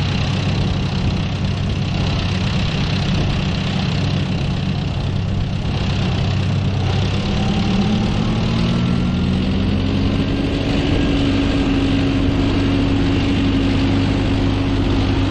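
John Deere tractor's diesel engine running steadily, then revving up from about seven seconds in and holding the higher speed as the tractor pulls away with the seed drill.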